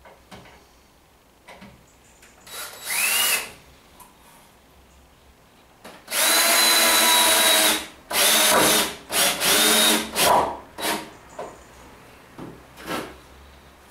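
Cordless drill with a crosshead bit driving wood screws into timber. There is a short burst that rises in pitch about three seconds in, then a steady run of nearly two seconds halfway through, then several short bursts in quick succession as the screw is driven home.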